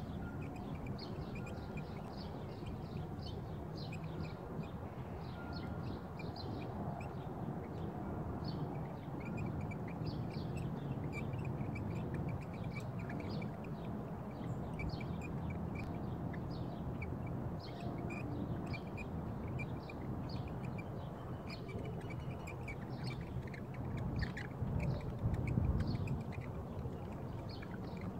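Birds calling over and over in short, high notes, over the low rumble of wind on the microphone, which swells in a gust near the end.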